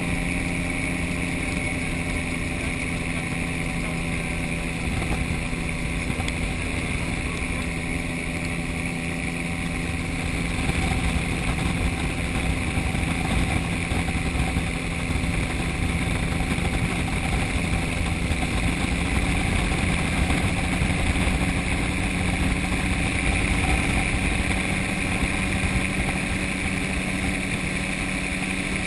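Gyrocopter's engine and propeller running steadily in flight, under a constant rush of noise. It grows a little louder about ten seconds in and eases back near the end.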